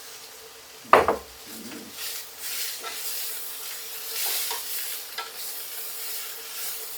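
Vegetables sizzling in hot oil in a frying pan on high heat as they are stirred, with sugar snap peas just added. There is a brief sharp knock about a second in, then a steady sizzle that swells with each stir.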